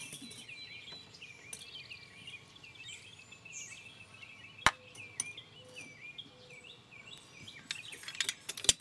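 Birds chirping in a steady run of short, repeated calls. A sharp metallic click about halfway through and another near the end come from the M1 carbine's operating-rod spring and slide being pulled out of the receiver.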